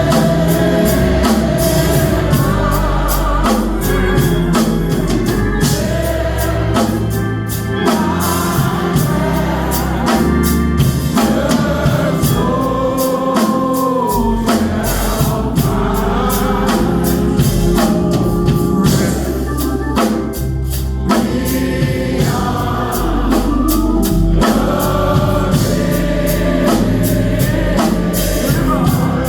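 Gospel music: a choir singing with organ and a steady beat of drums.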